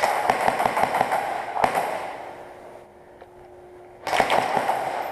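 Airsoft gun firing in rapid bursts: a run of quick cracks lasting about two seconds, then a pause, then a shorter burst about four seconds in.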